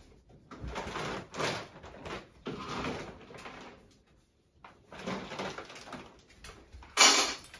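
Household handling noises as items are moved about at a storage counter: three noisy stretches of about a second each, and a louder, shorter one near the end.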